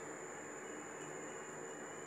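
Steady background ambience: an even hiss with a low hum and a constant high-pitched whine, unchanging throughout.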